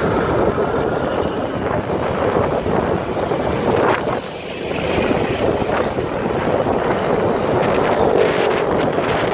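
Motorcycle engine running while riding along a road, with wind rushing over the microphone. The sound drops briefly about halfway through.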